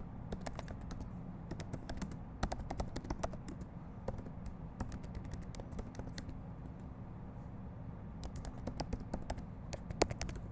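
Typing on a computer keyboard: irregular keystrokes in short runs, with one louder keystroke near the end, over a steady low hum.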